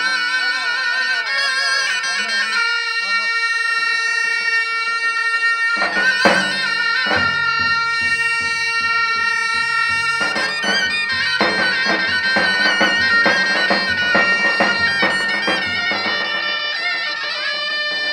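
Two zurnas, Turkish double-reed shawms, playing a folk tune together in long held notes, loud and steady.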